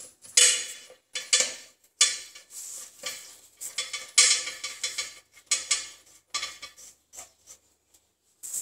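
Short metallic scrapes and clinks, repeated irregularly with brief pauses, as metal plumbing parts are handled and worked by hand.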